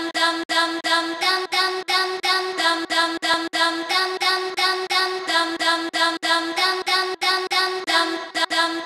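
A pitched, voice-like melodic sample finger-drummed on an Akai MPD 218 pad controller, chopped and retriggered about four times a second with its note stepping up briefly now and then. No drums or bass yet.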